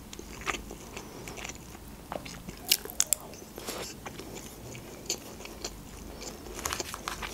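Close-miked chewing of a mouthful of rice, with scattered sharp mouth clicks, a few louder ones about three seconds in.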